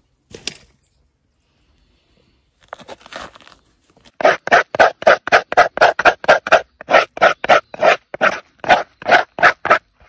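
Knife scraping the pulp out of the inside of a halved calabash gourd shell, in short strokes about three a second that start about four seconds in.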